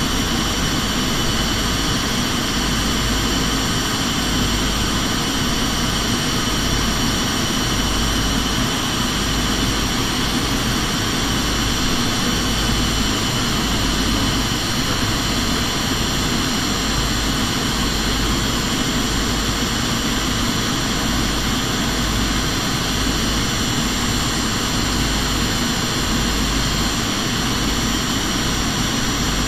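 Aircraft cabin noise in flight during the descent: the steady drone of the engines and rushing air, with a low rumble and steady high-pitched tones over it.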